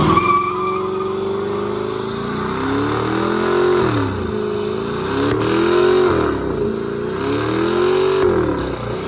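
A car engine revving hard at high rpm, the revs repeatedly dropping and climbing back up every second or two.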